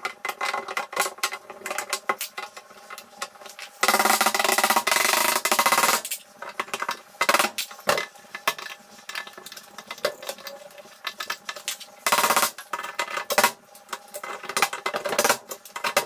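Rapid hammer taps on a wooden door frame while a wooden latch is fitted, with a power drill running for about two seconds a few seconds in and again briefly near the end.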